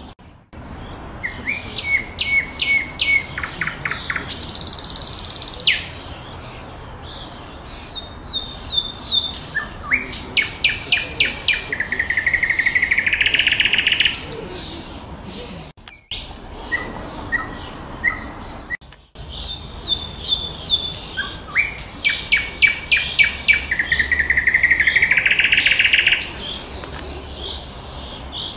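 Common nightingale singing: varied phrases of fast repeated notes, trills and whistles, separated by short pauses. Two phrases end in a long buzzing note that swells in loudness.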